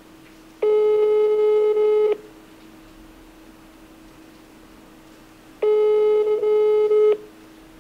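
Ringback tone of an outgoing call heard through a smartphone's speaker: two long rings, each about a second and a half, about five seconds apart, the called line ringing and not yet answered. A faint steady hum runs underneath.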